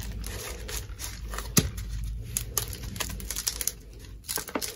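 Gritty succulent potting mix being poured and scooped into a small plastic pot: an irregular patter of small clicks and rustles as the grit falls and scrapes.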